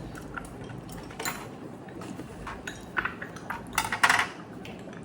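Eating utensils clinking and tapping against bowls and dishes during a meal: scattered short clicks, with a louder clatter about four seconds in.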